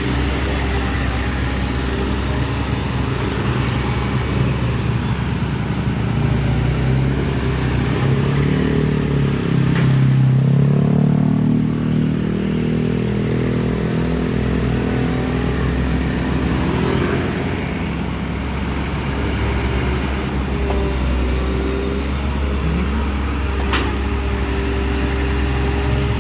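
Heavy diesel engine of construction machinery running steadily, its engine speed rising and then falling again about halfway through as the machine works.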